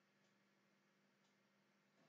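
Near silence: room tone with a faint steady hum and faint ticks about once a second.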